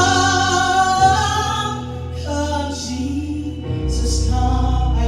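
Gospel song: a singer holding long notes over instrumental backing with a steady low bass.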